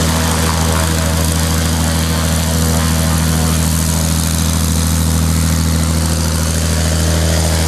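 Single-engine light aircraft taxiing past at low power, its piston engine and propeller making a loud, steady low drone.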